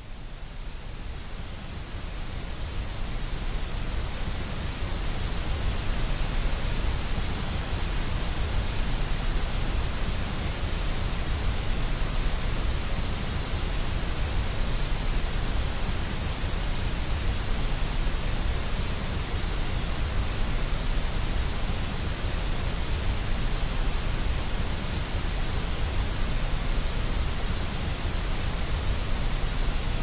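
Steady white noise, an even hiss across the whole range, swelling in over the first few seconds and then holding level.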